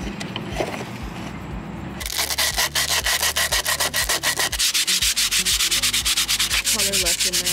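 A wooden trim strip sanded by hand, rubbed quickly back and forth over a flat sheet of sandpaper, starting about two seconds in with rapid, even strokes.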